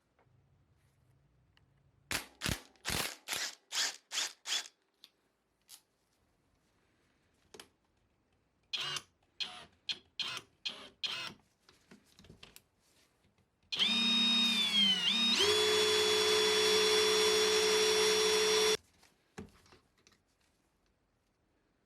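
Two runs of quick, sharp clicks, then a power-tool motor runs for about five seconds, dipping in pitch once before settling steady, and cuts off.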